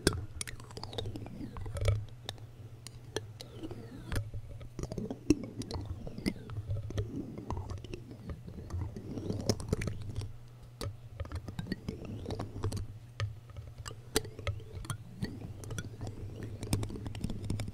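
Clear plastic spoons rubbed and tapped against a microphone right on the capsule, giving a dense run of small clicks and scrapes over a low rumbling handling noise.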